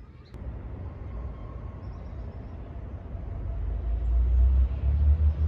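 Low rumbling noise that starts suddenly about a third of a second in and grows louder through the second half.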